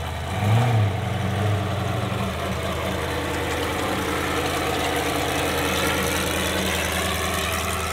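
Trophy truck engine running steadily at idle, with a brief rise and fall in revs about half a second in.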